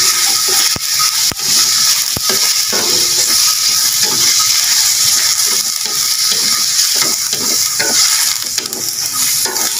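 Sliced pork stomach sizzling as it stir-fries in a stainless-steel wok, with a wooden spatula scraping and knocking against the pan as it stirs.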